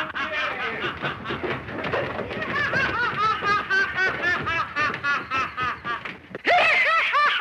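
A man laughing in a quick, high-pitched, unbroken run of bursts, about five or six a second. It dips briefly and comes back louder about six and a half seconds in.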